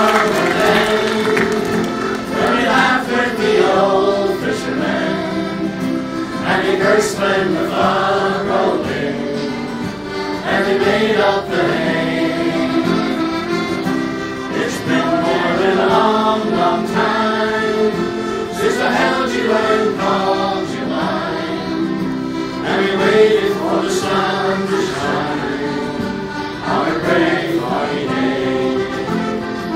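Button accordion playing a tune, its held chords steady underneath, while voices sing along.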